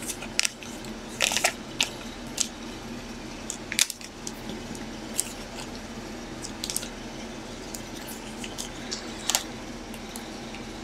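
Trading-card packs and cards being handled: scattered light taps, clicks and wrapper rustles, a dozen or so short sounds spread irregularly, over a faint steady hum.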